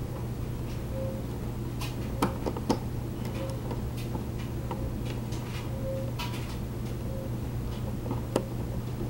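A few sharp, scattered clicks and light taps of scooter body parts and screws being handled during disassembly, over a steady low hum.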